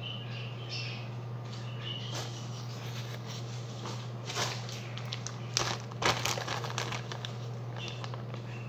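Crinkling and rustling of something being handled, in a cluster of sharp crackles about four and a half to seven seconds in, over a steady low hum.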